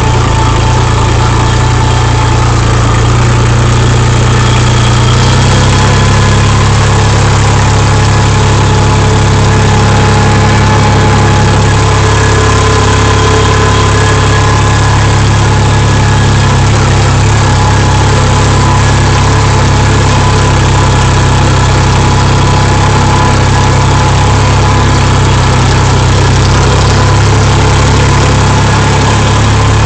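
Engine of a small ride-on tractor running steadily as it is driven along. It holds a constant note, with a slight change in engine note about five seconds in.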